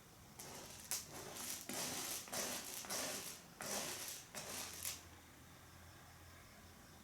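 Cat scratching and scraping at a toilet, a run of about nine quick scraping strokes lasting about four and a half seconds, then stopping.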